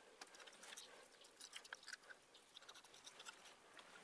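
Faint wet scraping and squishing of a spoon scooping the flesh out of a tomato, as a string of small irregular clicks and crackles.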